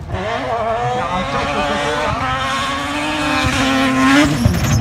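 Off-road rally car's engine held at high revs as the car approaches, its note growing steadily louder. Near the end it passes close by, and the pitch drops sharply.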